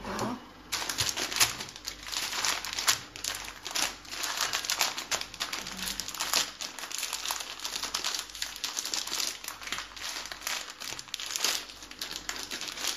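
Plastic packet of dried mung beans crinkling as it is handled and opened: a continuous run of irregular crackles starting just under a second in.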